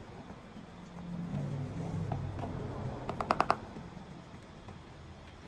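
Clear plastic treat tub being handled: a quick run of about five sharp clicks a little past the middle, over a low background rumble.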